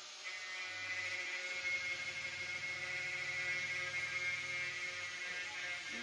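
Baby monkey giving a long, high-pitched whining cry that runs for about five seconds and fades near the end.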